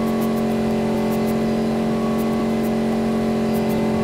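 Tourist bus engine running steadily while driving, a constant hum with light clicks now and then.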